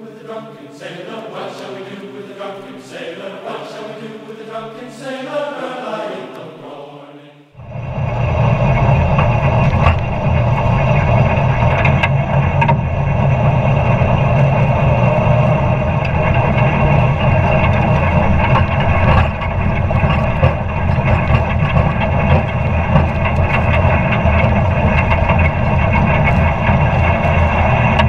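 Muffled, wavering tones for the first seven seconds or so, then an abrupt change to a New Holland TC30 compact tractor's three-cylinder diesel engine running steadily while driving a PTO manure spreader across the field.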